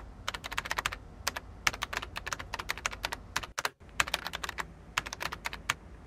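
Rapid, irregular sharp clicks in quick runs, several a second, with a brief pause a little past the middle.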